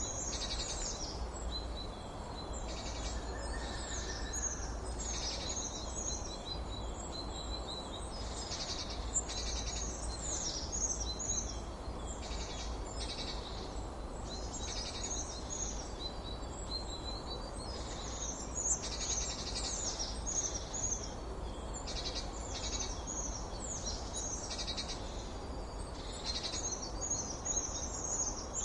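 Several birds chirping and singing without pause: many short high calls and quick trills overlapping one another, over a steady low background noise.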